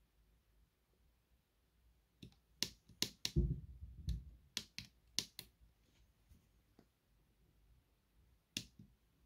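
Tactile push buttons on a TZX Duino tape-loader board clicking as a finger presses them to scroll through the file list: a quick run of sharp clicks a couple of seconds in, one more click near the end, with a dull knock among the first clicks.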